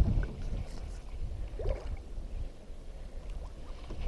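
Quiet water sounds around a kayak hull over a faint low rumble, with a few weak small knocks.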